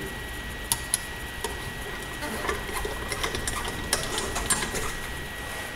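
Irregular light metallic clicking and ticking of a T40 star bit and its tool being worked on a bolt that holds a two-part pocket bike rim together.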